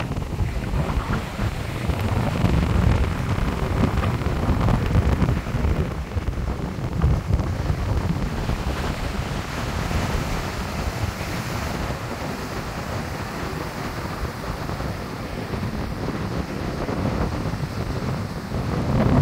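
Rough sea surf breaking and washing up a sandy beach, a continuous rushing that swells and ebbs with each wave, with wind buffeting the microphone as a low, gusty rumble underneath.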